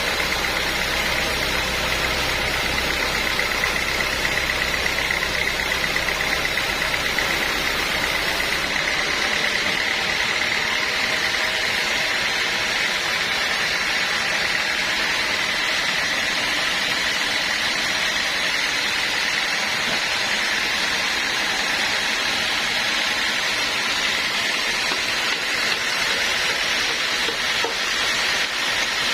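Sawmill machinery running steadily with a constant high whine over a noisy hum; a low rumble drops away about nine seconds in.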